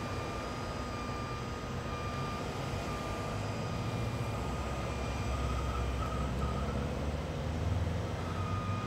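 Heavy diesel tow trucks running, a low engine rumble that grows louder in the second half under a steady high whine.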